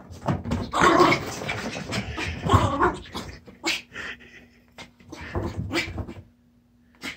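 Yorkshire terrier dashing about and rubbing itself dry on a couch and rug: irregular scuffling and scrabbling with short dog sounds, busiest in the first few seconds, then a brief lull near the end.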